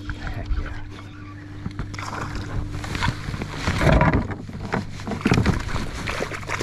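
Water splashing and gear knocking and rustling around a fishing kayak while a hooked smallmouth bass is brought alongside and netted, loudest in bursts about halfway through and again a second later, over a steady low hum.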